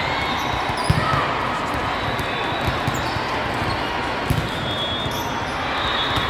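Volleyball hall din: steady background voices with sharp thuds of volleyballs being struck and bouncing on the floor, the clearest hits about a second in and just after four seconds. The large hall makes it echo.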